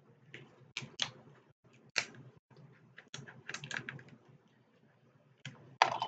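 Shellfish shells being cracked and picked apart by hand: irregular sharp cracks and clicks, with a quick cluster partway through and the loudest crack near the end.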